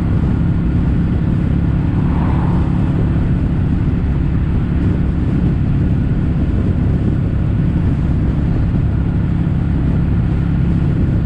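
Kawasaki W800's air-cooled parallel-twin engine running at a steady, unchanging pitch through stainless-steel caberton-style silencers.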